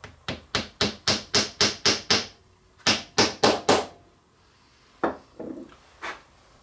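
Small mallet tapping a wooden dowel into a drilled hole in a block of wood: about eight sharp, evenly spaced taps at roughly four a second, a short pause, then four more, followed by a few softer knocks as the piece is handled on the bench.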